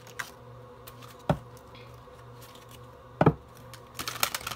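Tarot cards and decks being handled on a table: a few separate knocks as cards are picked up and set down, the loudest about three seconds in, then a quick run of light clicks near the end as the cards are handled.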